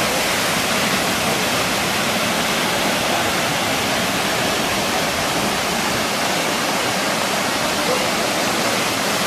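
Waterfall pouring off a rock cliff into a pool: a steady, even rush of falling water.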